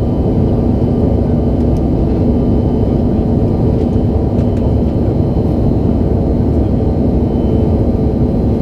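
Steady cabin noise inside a Bombardier CRJ-900 in flight: the drone of its rear-mounted turbofan engines and the airflow, with a faint steady high whine above it.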